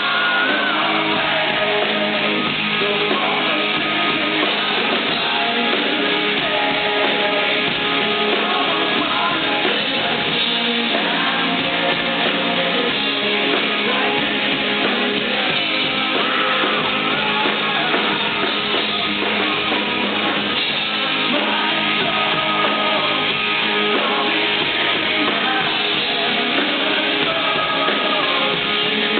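Rock band playing live, with guitar and a singing voice, in a fan's recording from the crowd.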